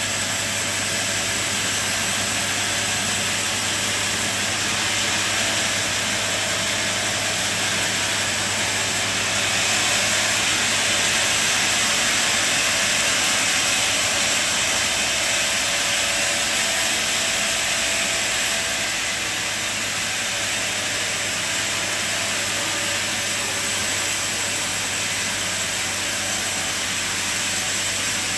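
Sawmill running with a steady low hum under a loud hiss as the blade cuts through a log, a little louder about a third of the way through.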